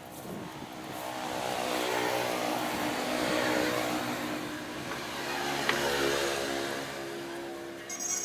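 Old Standard sewing machine running steadily, growing louder over the first two seconds, with a single click about five and a half seconds in.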